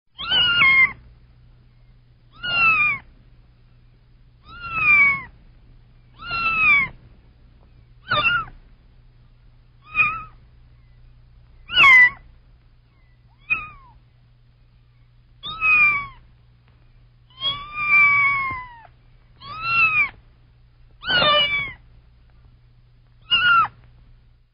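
A kitten meowing repeatedly, about thirteen high-pitched mews roughly every two seconds, each falling in pitch. One call about three-quarters of the way through is drawn out longer.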